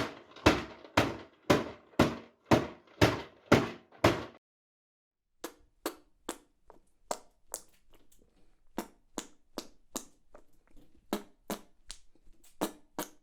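A series of knocks, about two a second for roughly four seconds. After a short pause comes a run of lighter, sharper taps.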